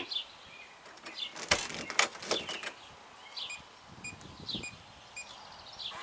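Bird chirping repeatedly in short falling notes, with a few sharp clicks about one and a half to two and a half seconds in.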